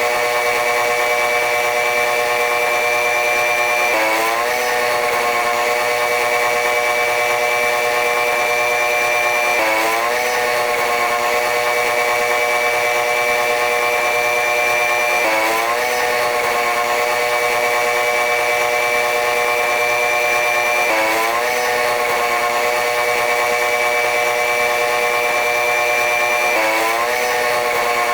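Sped-up running noise of a diesel-electric locomotive-hauled passenger train: a steady, high machine whine of several tones over a hiss. The whine sweeps briefly upward and settles again about every five and a half seconds.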